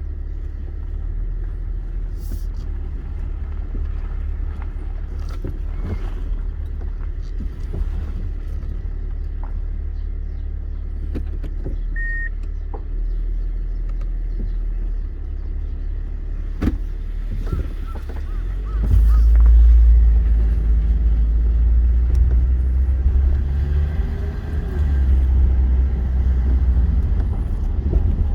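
Car driving, heard from inside: a steady low rumble of engine and road noise with scattered light knocks, getting louder a bit over halfway through.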